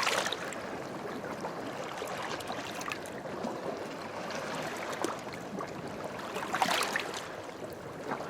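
Steady wash of moving water, with a louder surge at the start and another near the end.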